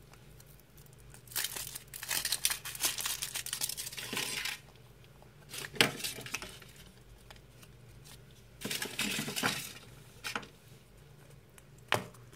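Foil wrapper of a Kinder Surprise chocolate egg crinkling and tearing as it is peeled off by hand, then a sharp crack as the chocolate shell is split. Another short burst of rustling follows, and a single sharp click near the end.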